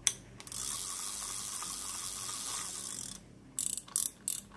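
A Ryobi spinning fishing reel being worked by hand: a sharp click, then a steady whirring hiss for about two and a half seconds, then a few short sharp clicks near the end.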